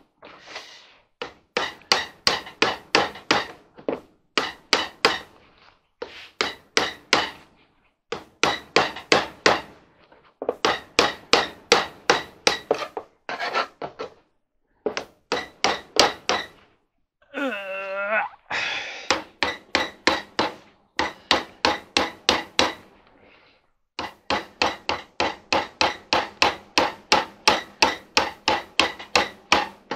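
Rapid hammer taps, about five a second in runs of a few seconds with short pauses, driving a putty knife to cut old glued felt off a clothes dryer's plastic door bulkhead. A brief squeal comes a little past halfway.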